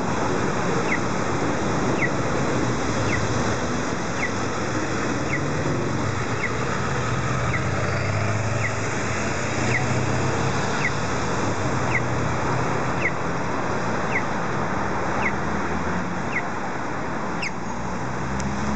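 Road traffic at a busy city intersection: cars passing and engines running, with a short high chirp repeating about once a second.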